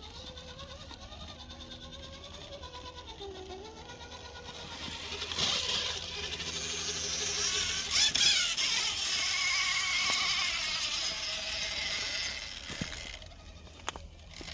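Small electric motors of radio-controlled rock crawlers whining, their pitch rising and falling with the throttle. From about five seconds a louder hissing noise comes in for several seconds, and there are a couple of sharp clicks near the end.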